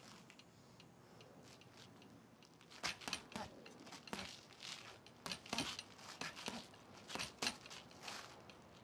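A series of light, irregularly spaced knocks and taps, starting about three seconds in.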